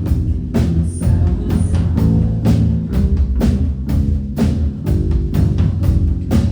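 Loud band music with heavy bass and a steady drum beat of about two hits a second.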